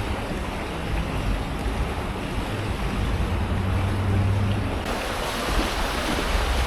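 Rushing water of a stream, a steady hiss that turns brighter and louder about five seconds in, with a low hum underneath.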